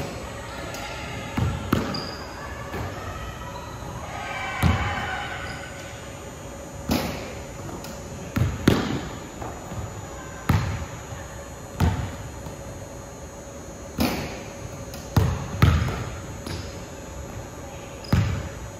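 Basketball bouncing on a hardwood gym floor: about a dozen single thuds at uneven gaps of one to three seconds, some in close pairs, each with a short echo.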